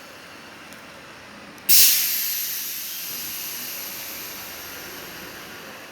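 Kia K5 air suspension letting out compressed air: a sudden loud hiss starts about two seconds in and slowly fades. The car is in for a front driver-side solenoid valve that malfunctions when operated.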